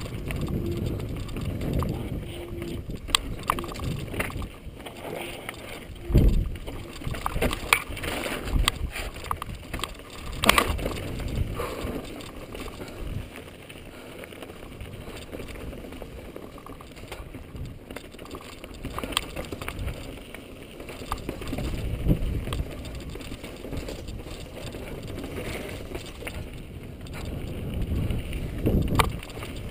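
Mountain bike riding down a rocky dirt and slickrock trail: tyres rolling over dirt and stone with a steady low rumble, broken by sharp knocks as the bike hits rocks, loudest about six and ten seconds in and near the end.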